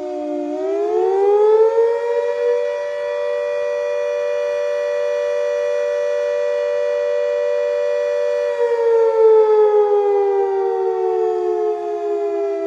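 Fire station siren wailing as a chord of two close notes. Its pitch rises from about half a second in, holds steady for about six seconds, then slowly winds down near the end.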